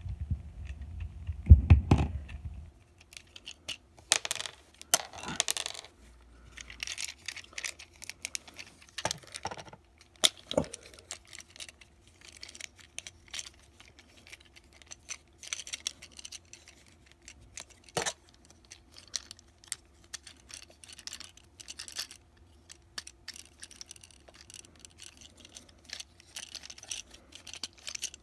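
Plastic parts of a Transformers War for Cybertron: Siege Chromia action figure clicking, scraping and rattling as it is twisted and transformed in the hands, with many small ticks and scrapes and an occasional sharp snap. A heavy low thump or two of handling comes near the start.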